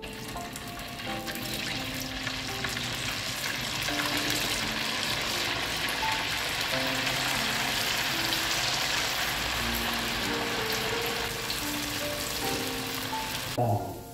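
Pieces of pempek fish cake (Spanish mackerel and tapioca dough) sizzling in hot oil in a wok as they are dropped in, the sizzle building as more pieces go in. The sizzling drops off sharply near the end. Soft background music runs underneath.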